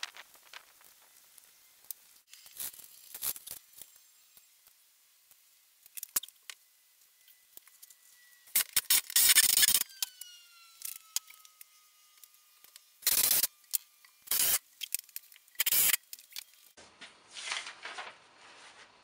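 Aerosol spray paint can hissing in several short bursts, the longest about a second and a half, as a welded steel frame is painted.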